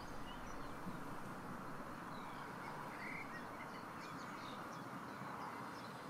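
Faint outdoor ambience: a steady, even hiss with scattered short, high bird chirps.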